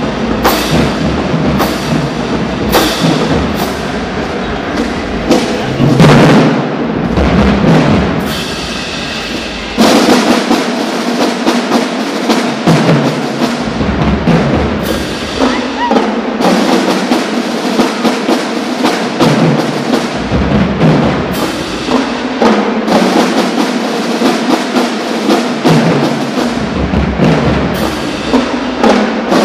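Marching band drumline (snare, tenor and bass drums) playing a fast cadence. The deep bass drums drop in and out. About eight seconds in the playing eases off, and near ten seconds the full line comes back in loudly all at once.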